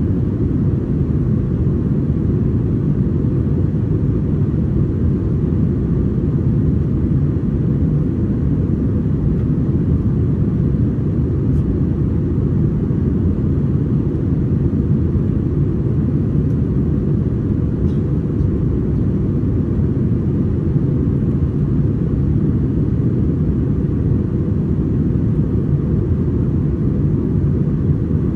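Steady low drone inside the cabin of an Airbus A321-231 in flight: its IAE V2500 engines and the airflow heard through the fuselage, with no change in pitch or level.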